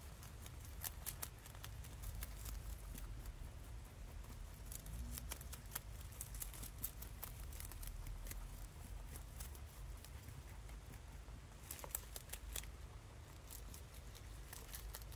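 A rabbit chewing and tearing crisp leafy greens such as curly kale and lettuce: quick, irregular crunching clicks that come in denser runs about a second in, around the middle and near the end, over a low steady rumble.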